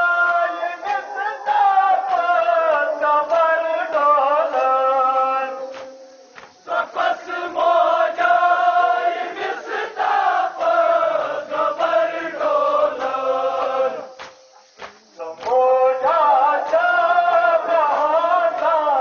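Male voices chanting a Kashmiri nohay, a Shia Muharram mourning elegy, in long sung phrases that break off briefly twice.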